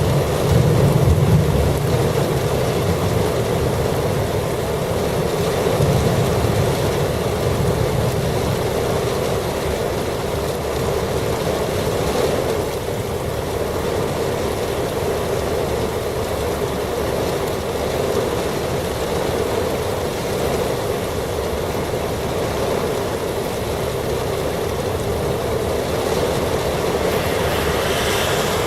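Heavy rain pouring down with gusty wind, a steady roar, with the wind buffeting the microphone as a low rumble in the first couple of seconds.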